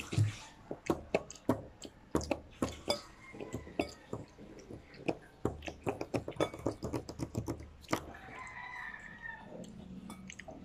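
Close-up mouth clicks and smacks of a child chewing black bean noodles, many short sharp ticks throughout. About eight seconds in, a rooster crows once in the background for about a second and a half.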